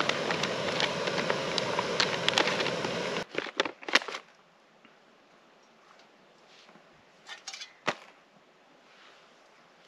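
Jetboil Stash backpacking gas stove's burner running with a steady rushing hiss while heating water for a freeze-dried meal. It stops abruptly about three seconds in, followed by a few small clicks and handling noises.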